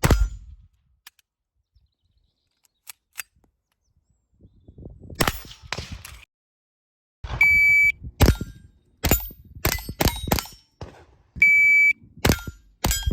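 Two electronic shot-timer beeps, each followed by a quick string of .22 rimfire gunshots with steel target plates ringing on the hits. A few single shots come before the first beep.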